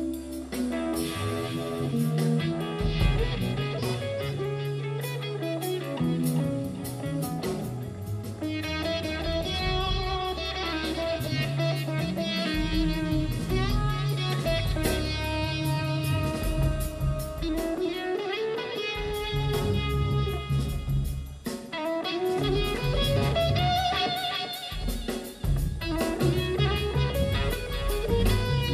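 Live rock band playing: an electric guitar plays a slow lead line of sustained notes that slide and bend in pitch, over a low bass line and drums.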